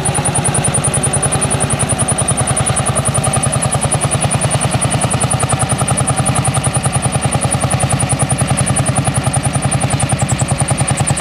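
Lanz Bulldog tractor's single-cylinder two-stroke hot-bulb engine running with a rapid, even beat.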